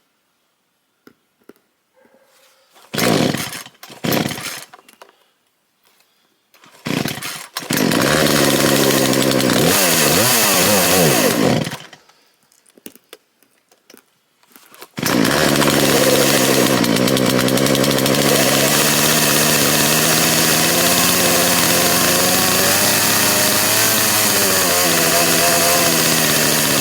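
Two-stroke chainsaw starting: it sputters briefly twice and then catches about seven seconds in. It runs and revs for about four seconds and dies, then fires again about halfway through and keeps running steadily. It is a hard-starting saw that doesn't like to stay running, which the owner puts down to something up with the choke.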